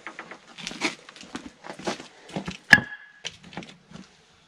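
Wooden roofing slats being handled and set on the greenhouse frame: scattered wooden knocks and scrapes, with one sharp clank near the middle that rings briefly.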